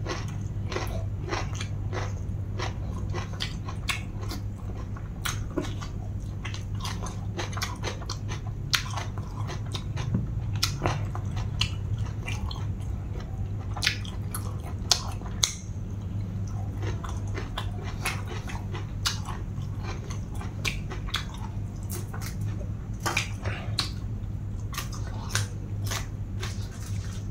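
Close-miked mukbang eating: a person chewing and biting pounded long-bean salad and raw vegetables eaten by hand, with many quick, irregular crunches and mouth clicks over a steady low hum.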